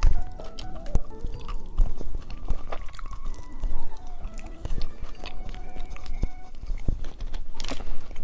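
Close-miked chewing and biting of soft gummy candy, a dense run of small wet clicks and squelches.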